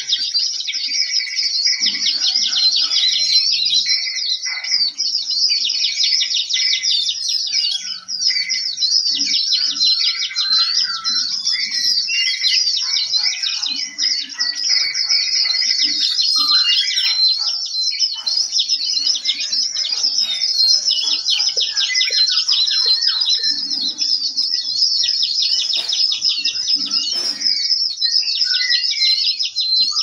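A chorus of many small birds chirping together without a break, a dense stream of rapid, high, repeated notes.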